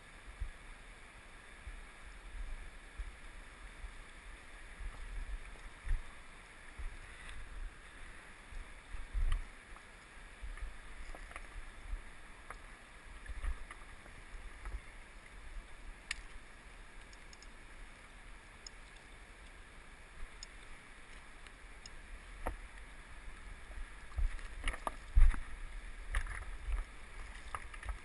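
Steady rush of a flowing river under a low, bumpy rumble of wind and handling on a body-worn camera's microphone, with scattered small clicks and knocks that crowd together near the end.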